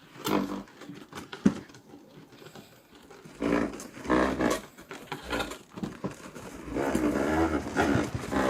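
Monster roar sound effects: repeated, wavering roaring cries that grow louder and run together near the end, after a few sharp clicks at the start.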